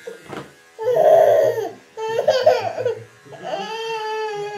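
A baby's high-pitched vocalizing: three drawn-out squeals of about a second each, the first one rough.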